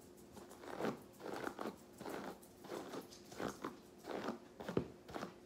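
Hairbrush strokes through damp, towel-dried long hair: the brush rasps through it in about eight repeated strokes.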